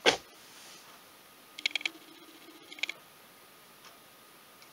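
Small metallic clicks and taps of a two-stroke piston and its wrist pin being handled and fitted onto the connecting rod, in two short clusters, after a sharp knock right at the start.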